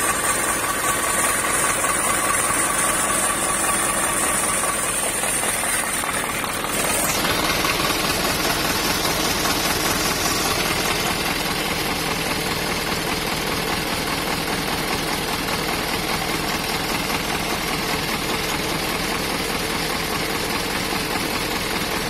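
Vehicle engines idling steadily. About seven seconds in, the sound changes abruptly from one engine, with a thin high whine over it, to a truck's inline diesel engine idling.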